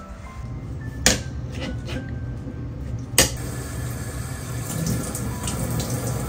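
Kitchen tap running into a sink while a chenille microfiber cloth is rinsed and squeezed by hand under the stream. Two sharp clicks come about one and three seconds in.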